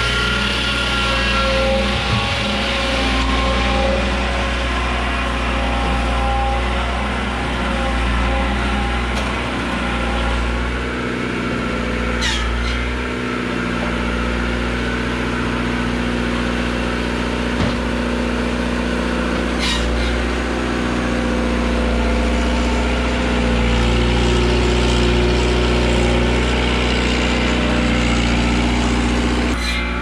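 A large engine running steadily at a constant speed, with a few sharp knocks or clicks, the clearest about 12 and 20 seconds in.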